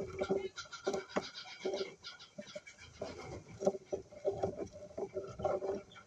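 Cockatiels in a nest box: scratching and shuffling in wood shavings, mixed with short, low calls that come again and again.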